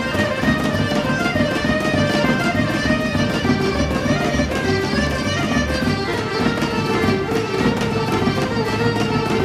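Lively Serbian folk dance music for a kolo, played by a folk ensemble over a fast, even beat.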